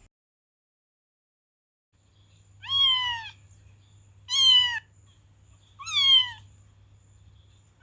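Cat meowing three times, each meow short and falling in pitch, about a second and a half apart.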